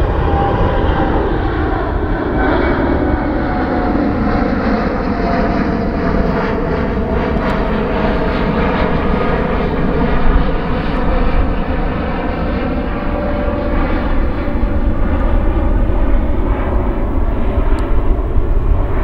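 Boeing 787 Dreamliner's Rolls-Royce Trent 1000 jet engines at climb power just after takeoff: a loud, steady roar overhead with tones sliding slowly down in pitch as the aircraft climbs away.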